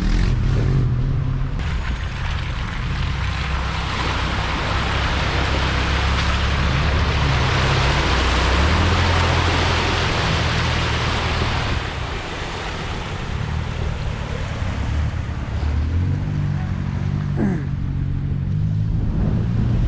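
4x4 engine revving as the vehicle drives through a deep muddy water hole, with a long rush of splashing water in the middle. The engine note climbs about halfway through and again near the end.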